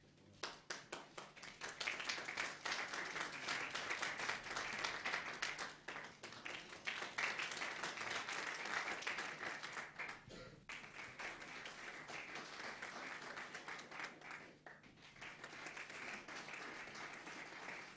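Audience applauding: a dense patter of hand claps that thins briefly a few times before picking up again.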